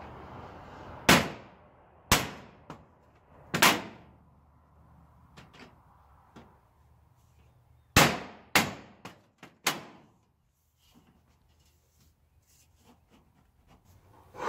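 A hammer striking metal siding on a pole barn gable: three blows about a second apart, a pause of several seconds, then a quicker run of four. A faint steady rumble fades out about a second in.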